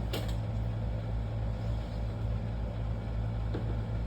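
Steady low mechanical hum, with two light clicks: one just after the start and one near the end.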